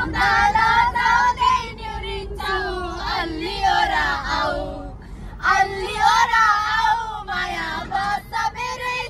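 A group of young women singing a song together, loud phrases with held notes and a short break about five seconds in, over the low rumble of the moving van.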